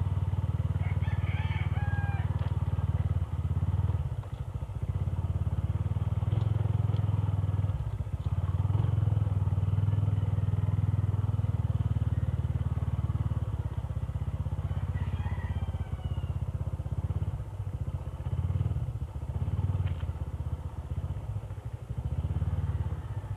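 Freshly tuned Honda RS125 Fi motorcycle's single-cylinder engine running at low speed while riding, swelling and easing off with the throttle. A rooster crows twice, about a second in and again about fifteen seconds in.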